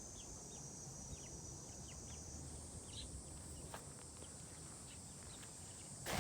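Faint outdoor background: a steady high-pitched insect drone with many short, scattered chirps, and a brief rustling knock near the end.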